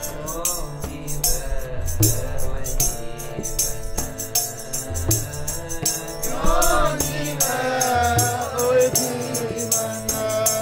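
Sikh keertan: a voice singing gurbani over the steady held chords of a harmonium, with low hand-drum strokes about every second and a half and a rapid jingling percussion. The singing is strongest past the middle.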